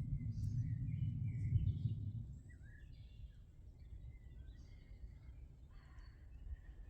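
Small birds chirping and singing in short scattered calls, over a low rumble that is loud for the first two seconds and then fades.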